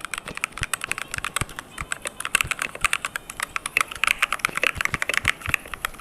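Fast, continuous typing on a mechanical computer keyboard with clicky key switches: dense, irregular key clicks, louder and busier from about two seconds in.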